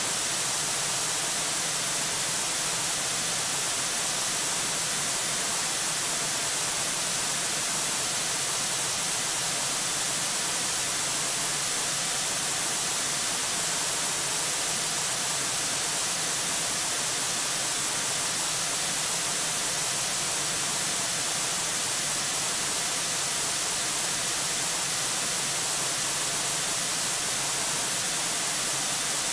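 Steady hiss of static from the eagle nest camera's audio feed, even throughout and strongest in the high treble.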